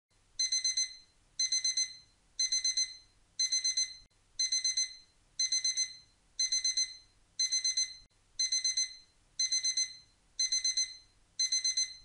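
Electronic alarm-clock beeping from a countdown timer that has reached zero: quick groups of four high beeps, repeated about once a second.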